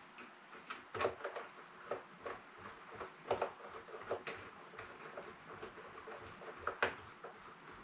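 Hand screwdriver driving the action screws into a Hatsan Flash PCP air rifle: scattered light clicks and small knocks of metal and tool handling, irregular, with a few sharper clicks in the middle and near the end.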